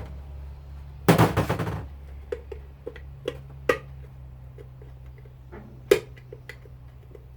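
Tools knocking and clattering on the metal parts of a garbage disposal being taken apart: a quick burst of rapid rattling about a second in, then scattered knocks and taps, with a loud knock near six seconds, over a steady low hum.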